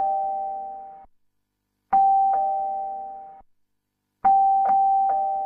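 Two-tone electric door chime sounding ding-dong: a high note then a lower one, each fading over about a second. It is rung again about two seconds in, then hurriedly near the end as ding-ding-dong.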